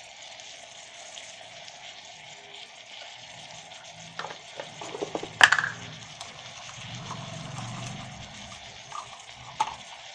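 Onions and tomatoes sizzling in hot oil in an electric kettle, with a steady hiss throughout. About four to six seconds in, a spoon stirs and knocks against the pot, with one sharp clink.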